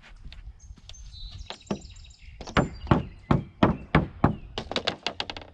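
Hammer blows on wood: a run of sharp strikes, about two a second, starting about two and a half seconds in, typical of nailing shed framing.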